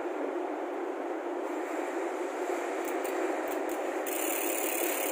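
Ragusa XM800 rear hub's freehub ratcheting as the rear wheel is spun by hand, giving a dense, steady buzz.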